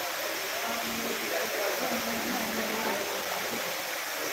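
Steady rushing hiss of a waterfall, an even wash of falling water.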